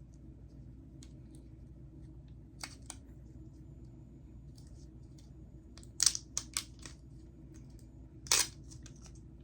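Plastic snack wrapper being worked open by hand: a few short crinkles and snaps, a louder cluster around the middle, and one longer tearing rip near the end.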